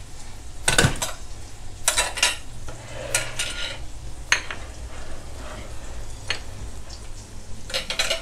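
Pork fat, garlic and ginger sizzling in a thin iron wok over low heat, with about six sharp clinks of dishes and metal utensils being handled and set down.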